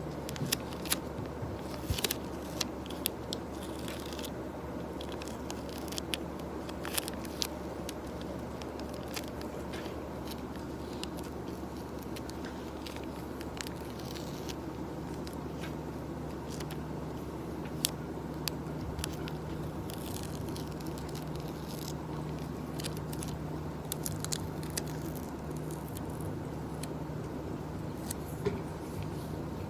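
Sparse light clicks and taps of small objects handled at an office desk, over a steady low hum of office background.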